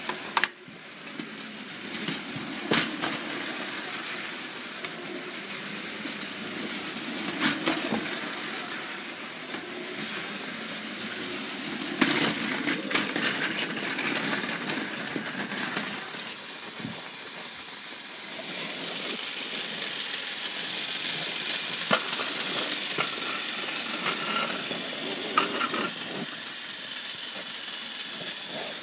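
Motorised Lego train running along plastic track: a steady whirring hiss of the motor and wheels, louder in the second half, with sharp clacks of plastic bricks several times.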